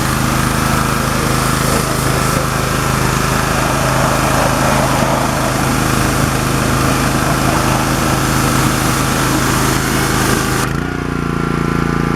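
Pressure washer running: a steady motor hum under a loud hiss of water spray. About eleven seconds in the spray stops and the motor runs on with a slightly changed hum.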